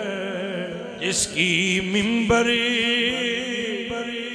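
A man chanting a verse of an Urdu devotional salaam in long, wavering held notes, pausing briefly about a second in before taking up the next note.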